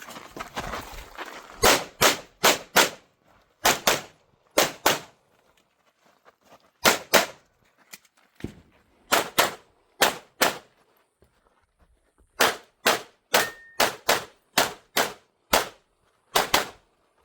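Pistol shots fired at speed through a USPSA stage: sharp cracks mostly in quick pairs and strings of three or four, with short pauses between groups as the shooter moves between target arrays, about two dozen shots in all.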